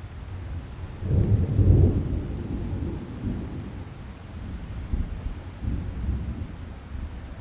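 A thunderclap rumbling in about a second in, loudest just after, then rolling on in weaker low swells, over a steady hiss of rain.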